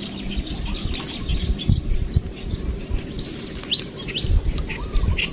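Small birds chirping, a scatter of short high chirps and quick upward calls, over low knocks and rustling.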